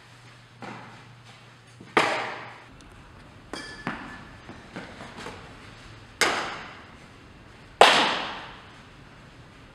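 About half a dozen sharp smacks of softballs into leather gloves, the loudest near the end, each ringing on in the echo of a large indoor training hall.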